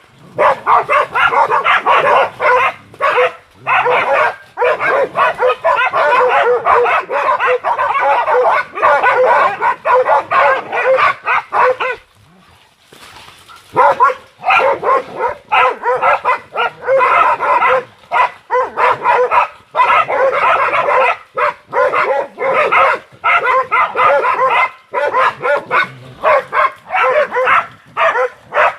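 Several dogs barking and yelping almost without pause, with a short break of about a second and a half about twelve seconds in.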